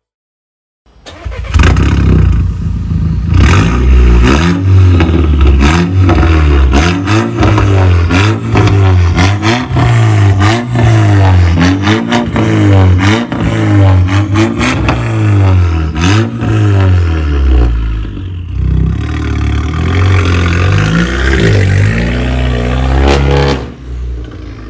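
Skoda Octavia A5 TSI petrol engine through a split aftermarket exhaust with Akrapovic tips, revved hard in quick repeated blips, each rising and falling, with sharp pops and cracks between them. Near the end it settles into a single longer pull that fades off.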